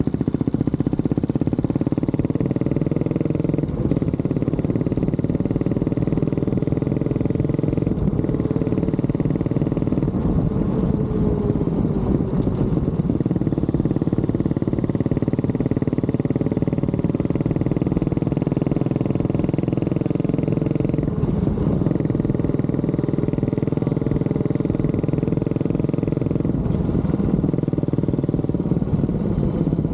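Honda CB400SS single-cylinder engine running steadily while the motorcycle is ridden, its note shifting briefly a few times.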